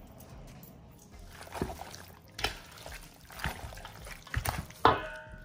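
Wooden spoon stirring raw chicken pieces in a stainless steel bowl: a series of knocks and scrapes, the loudest one near the end setting the bowl ringing briefly.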